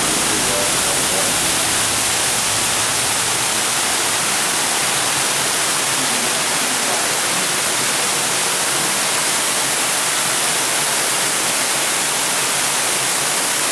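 Steady rush of an indoor waterfall, water pouring down a rock wall and splashing onto the wet floor below, an even hiss with no pauses.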